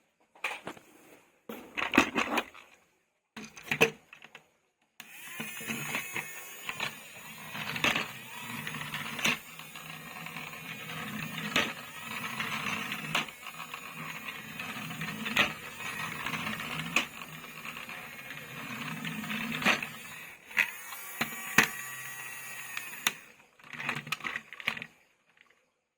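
Plastic toys being handled: a few sharp clicks and knocks, then a long stretch of continuous rattling and clattering full of quick clicks, then a few more clicks near the end.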